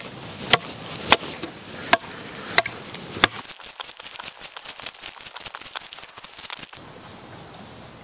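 Sharp knocks of a tool striking wood, about one every two-thirds of a second, then an auger bit boring into a wooden log, the wood crackling and crunching as the bit cuts.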